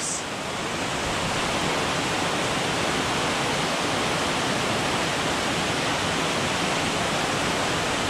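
Waterfall pouring into a pool, a steady, even rush of water.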